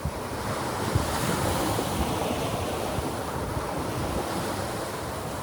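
Surf from strong waves breaking on a beach, with wind buffeting the microphone.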